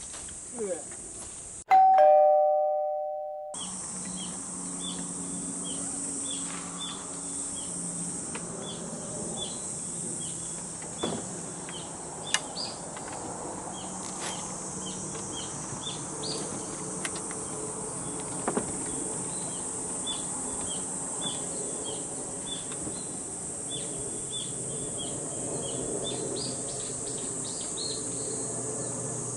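A loud two-tone chime, a ding-dong stepping down in pitch, sounds once about two seconds in over a moment of dead silence. After it, outdoor ambience: a steady high drone of insects with many short repeated bird chirps.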